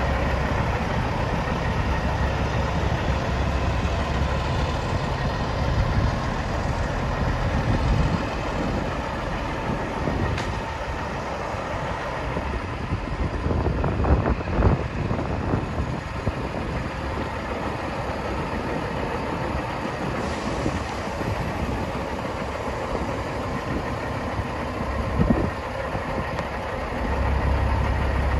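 Caterpillar C15 diesel in a Kenworth W900L idling steadily, its low rumble strongest at the start and again near the end. A few short knocks come through about halfway and again later.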